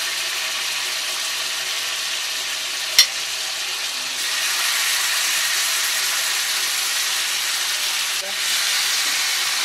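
Marinated chicken tikka pieces sizzling in hot butter and oil in a pan as they are laid in. The sizzle steps up about four seconds in, and there is one sharp click about three seconds in.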